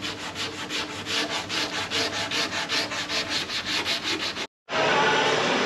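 Hand sanding pad rubbed back and forth over the bare-metal body panel of a Ferrari 512 BBi, in quick even strokes about five a second, smoothing the last bits of the repair. It cuts off suddenly about four and a half seconds in, and a steady rushing noise follows.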